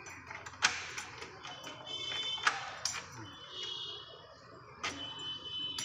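Key turning in a lever-handle door lock: a few sharp metallic clicks of the lock mechanism, spread over several seconds, with music playing underneath.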